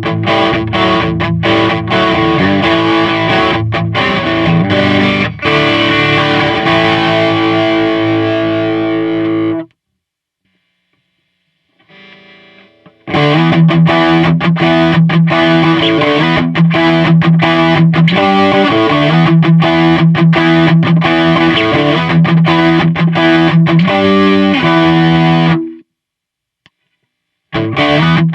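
Electric guitar played through an overdrive pedal: distorted chords and riffs in two long passages, broken by a few seconds of silence about ten seconds in and another short break near the end.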